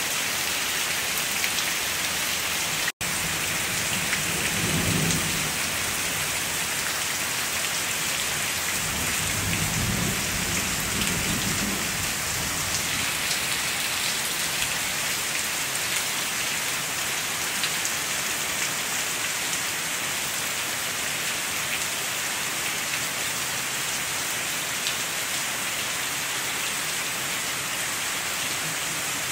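Steady rain hissing, with two low rumbles of thunder, one about four seconds in and another around ten seconds in. The sound cuts out for an instant about three seconds in.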